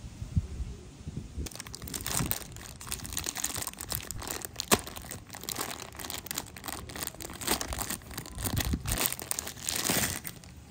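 Clear plastic packaging bag crinkling as it is handled and opened, a dense crackling with many small clicks that starts about a second and a half in and stops just before the end.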